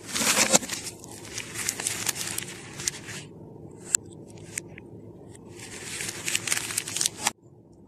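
Plastic wrappers of a handful of Cadbury Dairy Milk mini chocolate bars crinkling as they are scooped up and shuffled in the hands. There are three bursts of crinkling, with a single sharp click between them about four seconds in. The sound cuts off suddenly near the end.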